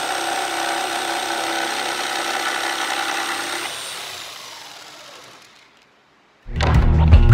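Corded jigsaw cutting through plywood with a steady buzz. About four seconds in it is switched off and winds down to silence. Loud music starts near the end.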